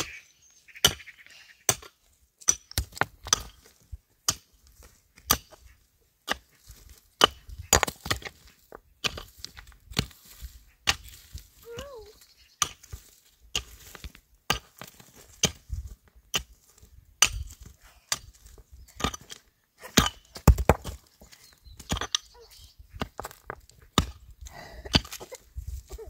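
Chopping wood with a hand tool: a run of sharp strikes, one or two a second at an uneven pace, with the heaviest blows a little over two-thirds of the way through.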